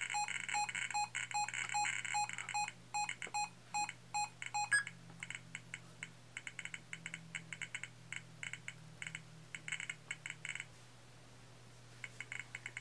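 NukAlert-ER personal radiation detector sounding its dose-rate alarm: a rapid, even series of electronic beeps, about three a second, tripped by a cesium-137 test source reading above the 2.5 mR/hr threshold. A little under five seconds in, the alarm is snoozed and cuts off. After that only the detector's short, irregular chirps remain; they thin out and stop about two seconds before the end, then start again near the end.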